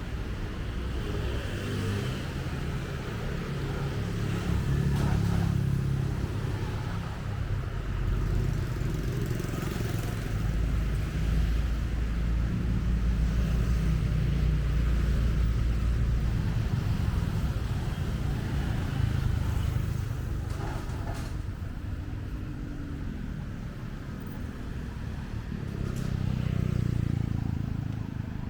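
Street traffic: motor vehicles passing with a low engine rumble that swells and fades as they go by.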